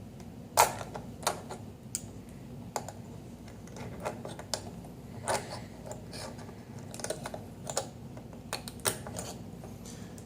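Irregular sharp clicks and light knocks of metal parts of a Caravel lever espresso machine being handled and fitted back together, the piston assembly going back down into the group, over a steady low hum. The loudest click comes about half a second in.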